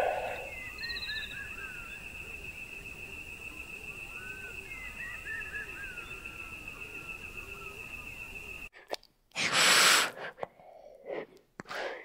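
Outdoor ambience with a steady high-pitched drone and small birds chirping. After a cut, an animal gives one loud breathy snort near the ten-second mark, followed by a few short breaths.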